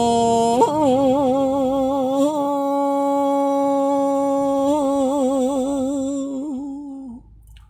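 A man singing vọng cổ a cappella, holding one long note with vibrato that fades out near the end.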